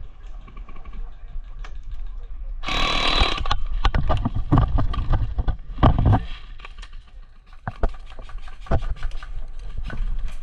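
A short burst of rapid full-auto airsoft gunfire about three seconds in, lasting about half a second, amid scattered clicks and knocks.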